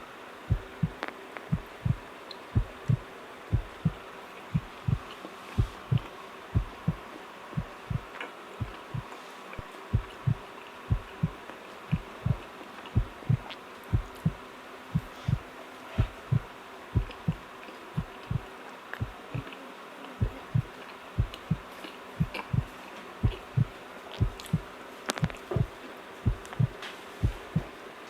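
Close-miked chewing of a soft donut: a steady run of low, dull thumps, about two a second, pausing briefly now and then.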